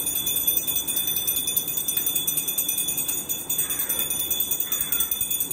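A small puja bell ringing continuously in a rapid, steady jingle, with a faint tune under it.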